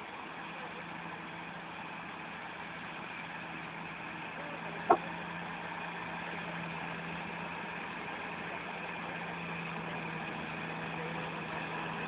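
Komatsu bulldozer's diesel engine running steadily as the dozer pushes dirt. One sharp click about five seconds in.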